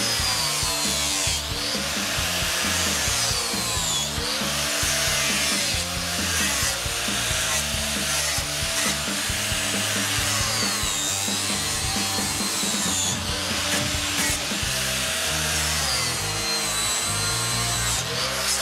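DeWalt angle grinder with a 36-grit sanding disc grinding the surface of a cedar carving, its whine dipping and rising again and again as the disc is pressed into and eased off the wood. Background music plays underneath.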